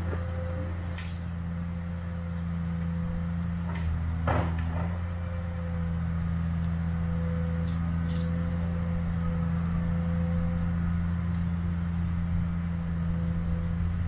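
Wheeled forestry harvester running steadily, its diesel engine humming with a constant whine from the hydraulics as the crane works. A few scattered knocks of wood and machinery, the loudest about four seconds in.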